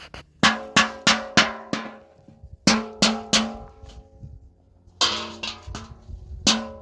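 Repeated hard blows on metal, each ringing briefly. They come in quick runs of three or four, about three a second, with short pauses between the runs, like hammering at building work.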